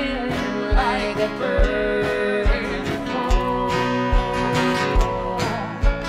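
Live acoustic folk duo: an acoustic guitar and a banjo played together, with voices singing. A low thump falls on each beat, a little under once a second.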